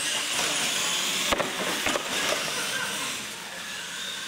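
Radio-controlled monster trucks accelerating across a concrete floor: a steady hiss of electric motors and tyres with a faint rising whine, and two sharp knocks a little over a second in and again about half a second later.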